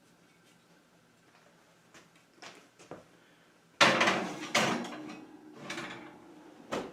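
Metal baking pans and an oven rack clattering as pans are loaded into a kitchen oven: a few faint clicks, then a loud metallic clatter about four seconds in that rings briefly, followed by a second hit and smaller knocks.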